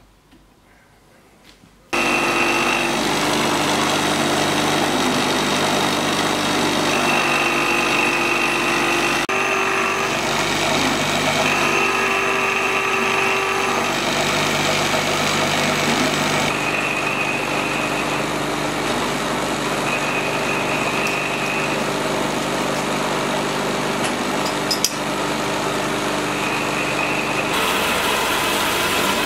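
Workshop metalworking machines running, starting abruptly about two seconds in: a Jones & Shipman machine, then a metal-cutting band saw near the end, each a steady mechanical hum with a held whine. There is one sharp clank a few seconds before the end.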